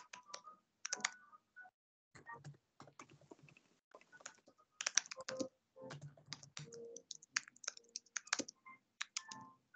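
Typing on a computer keyboard: a run of quiet keystrokes at an uneven pace, with a few short pauses between bursts.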